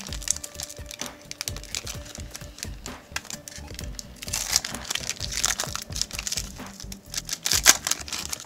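A trading-card pack's wrapper crinkling and tearing as it is opened by hand, in quick irregular crackles, over light background music.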